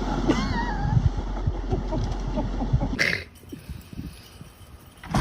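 An animal's short wavering whine, rising and falling in pitch, over a steady low rumble of wind on the microphone; the rumble drops off abruptly about three seconds in.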